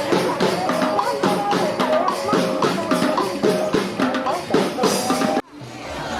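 Background music with a steady drum-kit beat and a melody, cut off suddenly about five seconds in, after which a different sound fades in.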